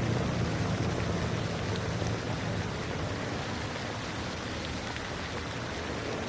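City street ambience in the style of the 1930s: a steady, rain-like hiss over a low traffic rumble that eases off over the first few seconds.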